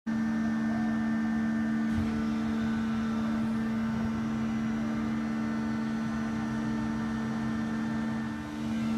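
Hydraulic ground power unit running with a steady hum and a strong low tone, pressurising the Airbus A330's hydraulic system for a landing-gear test.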